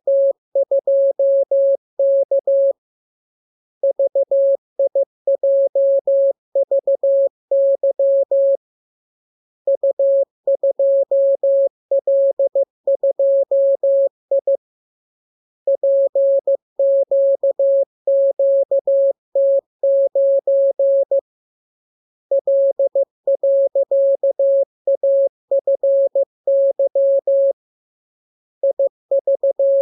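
Morse code (CW) sent as a single mid-pitched beep tone, keyed on and off in quick dots and dashes. It comes in runs of about five to six seconds broken by short pauses of about a second, five times.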